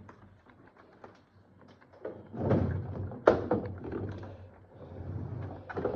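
A heavy washing machine being shoved and dragged, with a rough rumbling scrape starting about two seconds in and a sharp thunk about a second later, then dying away.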